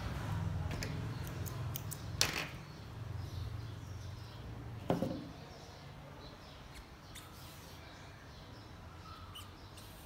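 Hand-sewing handling noises as tulle fabric and thread are worked by hand, with two sharp knocks about two and five seconds in and small ticks after. A low hum runs under the first half.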